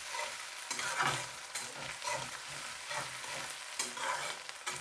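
A spatula scraping around a kadhai, stirring chopped onions, crushed ginger, garlic and green chilli as they fry in hot mustard oil. A steady sizzle runs under sharp scrapes about twice a second.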